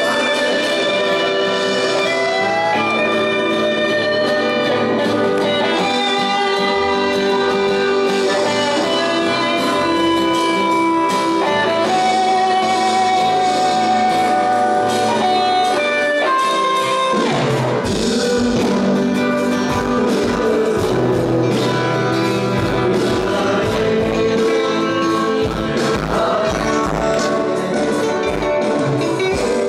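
Live band playing: a male singer over electric guitars and drums. About halfway through, a heavier low beat from the bass and drums comes in.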